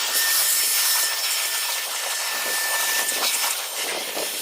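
Steady hiss of a jet of blown air drying wet sheet metal, with a faint steady whine under it.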